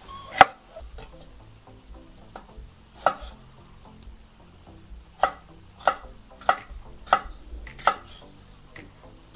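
Chef's knife chopping sweet bell pepper on a wooden cutting board: a couple of sharp chops in the first few seconds, then a steady run of chops about every two-thirds of a second in the second half.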